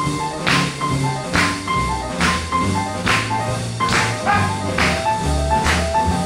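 Instrumental break of an up-tempo jazzy song: a walking bass line and a bright melody instrument over a drum hitting a steady beat a little under once a second.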